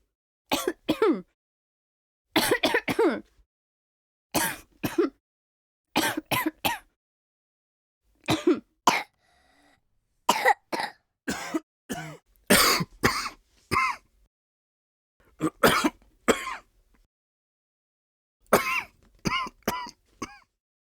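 People coughing: about a dozen short fits of two or three coughs each, some of them voiced, with a silence of about a second between fits.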